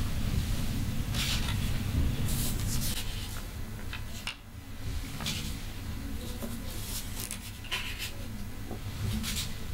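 Large sheets of drawing paper rustling as they are handled and turned in a portfolio, in short scrapes every second or two over a low steady rumble.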